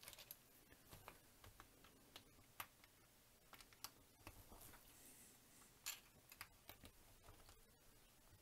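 Small Sembo Blocks plastic bricks being handled and sorted by hand, tapping and clicking against each other in a string of faint, irregular clicks, with a few sharper ones.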